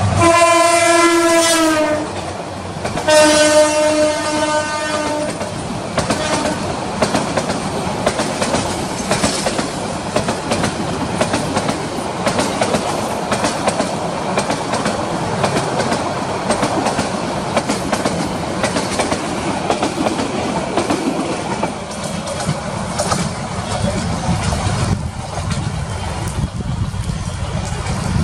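Bangladesh Railway diesel locomotive sounds two long blasts on its horn, one right at the start and another about a second later. Its passenger coaches then roll past for the rest of the time, a steady loud rumble with the clickety-clack of wheels over rail joints.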